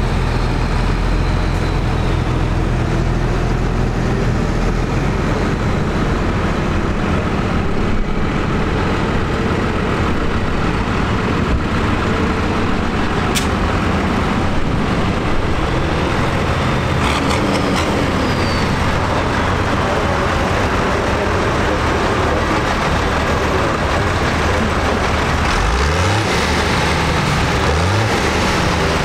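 Tractor diesel engines running as tractors drive past. Near the end an engine's pitch rises several times as it revs up.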